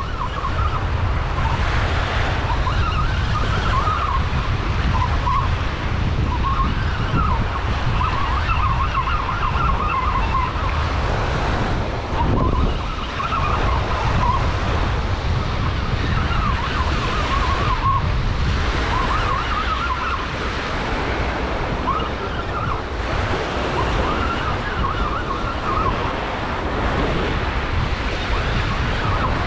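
A baitcasting reel being cranked to bring in a hooked fish, its gears giving a whine whose pitch wavers as the cranking speeds up and slows, with a short break partway through. Steady surf and wind on the microphone lie under it.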